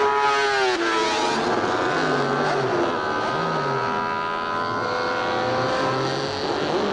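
Honda RC166 250cc six-cylinder Grand Prix racing engine at high revs as the bike passes close by. Its high-pitched wail drops sharply in pitch in the first second, then holds a steady note as it runs on round the circuit, with a short rise and fall in pitch near the end.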